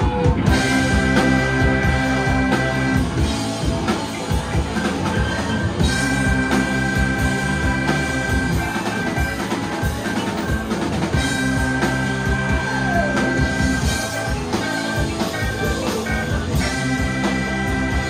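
Live rock and roll band playing an instrumental passage: drum kit, electric guitar and two saxophones. Sustained riffs drop in and out in phrases of a few seconds over a steady drum beat.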